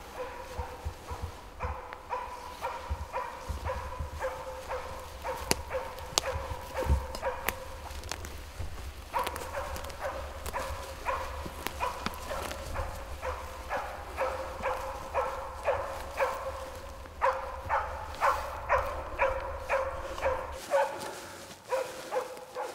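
Elkhound hunting dog barking over and over in runs of quick barks, at times about three a second, with a low rumble underneath that stops near the end.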